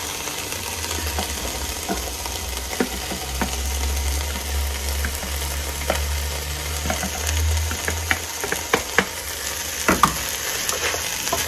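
Poblano chile strips, corn, garlic and onion sizzling in oil in a pot while shredded chicken is spooned in, with scattered light taps and scrapes of a plastic spoon against the container and pot, thickest near the end. A low steady hum runs underneath.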